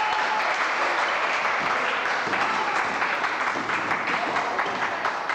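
Spectators applauding, with a few voices calling out among the clapping.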